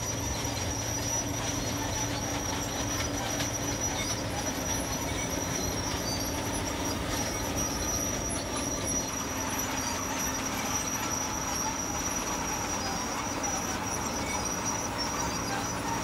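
John Deere 9660 CTS combine running steadily while harvesting rice: an even machine drone with a thin, high-pitched whine held over it.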